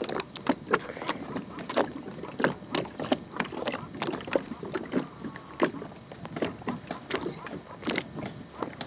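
Small waves slapping against a boat's hull: an irregular run of short, splashy knocks, several a second.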